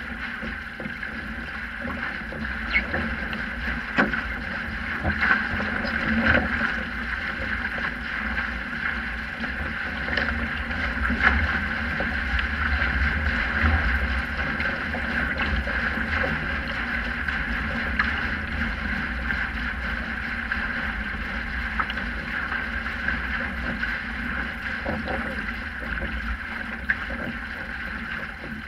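A Sprint 15 catamaran's hull moving through choppy water: a steady rush of water along the hull with scattered slaps and knocks, and a low rumble of wind on the microphone.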